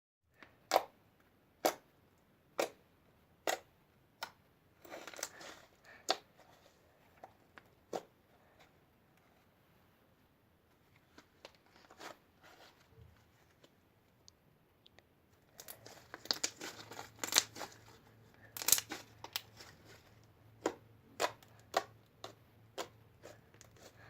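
Slime being pressed and stretched by hand, giving sharp pops about once a second, then a quieter spell, then a burst of dense crackling and popping before single pops return near the end.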